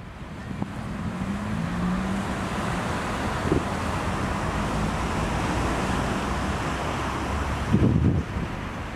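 Steady rushing wind on an open beach, with gusts buffeting the microphone as low thuds about three and a half seconds in and again near the end. A faint low hum wavers under it in the first few seconds.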